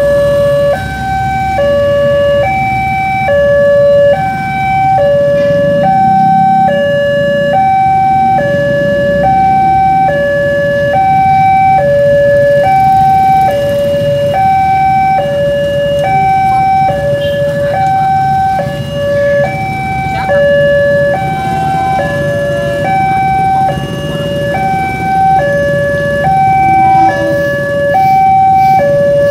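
Level-crossing warning signal of an Indonesian railway crossing sounding with its barrier down, the sign of an approaching train. A high and a low electronic tone alternate evenly, about half a second each, over the low running of idling motorcycles.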